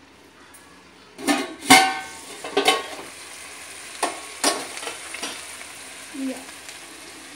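Stainless-steel lid lifted off a pot of vegetables on a gas stove, clanking and ringing a little over a second in. Then the vegetables sizzle steadily in the open pot, with a few lighter metal clicks as the lid is set aside.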